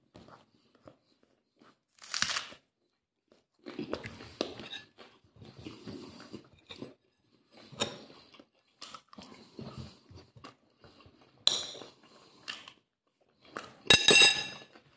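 A man chewing food close to the microphone, crunching a mouthful of pork skewer meat and bread in irregular bursts with wet mouth sounds. A short, ringing clink comes near the end.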